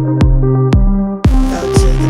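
Background electronic dance music with a steady kick drum about twice a second under held bass and chord notes. The high cymbals are dropped out and come back in just over a second in.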